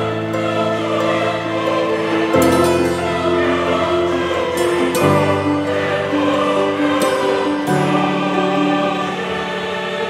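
Background music: slow sustained chords that change every two to three seconds.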